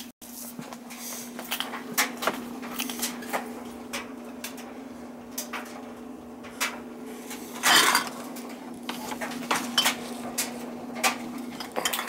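Oil burner on a Peerless boiler running with a steady hum, under scattered light knocks and handling clatter, with one louder scrape about eight seconds in.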